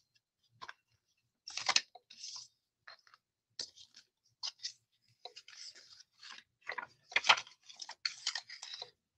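Clear plastic packaging crinkling and rustling in irregular bursts as it is opened and handled.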